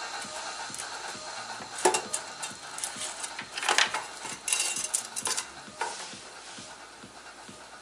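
Irregular small metal clicks and clinks of computer hardware being handled and fitted during assembly, a handful of sharp ones in the middle and quieter toward the end.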